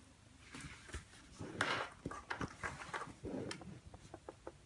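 Cat eating wet food from a bowl: a string of small wet smacking clicks with a few louder rustles, the clicks coming faster near the end.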